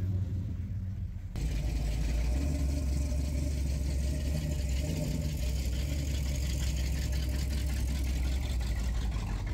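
Car engine idling with a steady low rumble. About a second in, the sound jumps abruptly to a louder running engine that holds steady.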